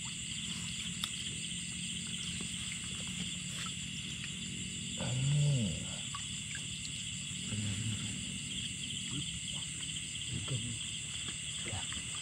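Steady night chorus of crickets and other insects trilling in a rice field, over a low hum. About five seconds in, a short low grunt or call stands out as the loudest sound, and a few light splashes come from a hand feeling through shallow muddy water.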